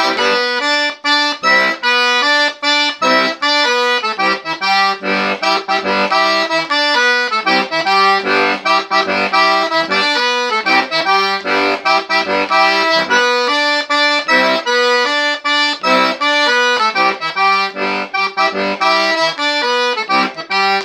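Wooden button accordion playing a lively zydeco instrumental break: pumped chords and low bass notes in a steady, even rhythm.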